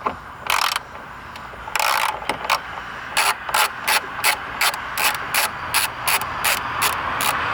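Socket ratchet clicking as a 10 mm bolt is backed out: two short quick runs of clicks, then steady strokes at about three a second.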